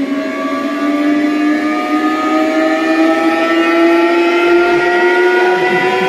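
Zebronics Basso home theatre speakers playing a single pitched tone, rich in overtones, that rises slowly and steadily in pitch.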